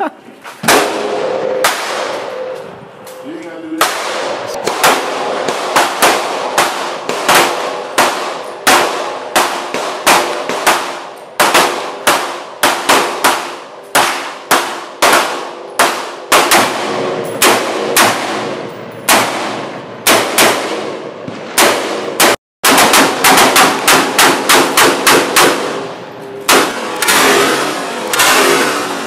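Gunfire on an outdoor range from handguns and an AK-pattern pistol: dozens of sharp shots, mostly fired singly about a second apart, with faster strings of several shots a second later on. Each shot has a short echoing tail.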